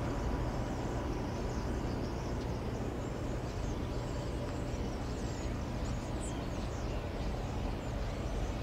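Outdoor ambience: a steady low rumble with small birds chirping faintly above it.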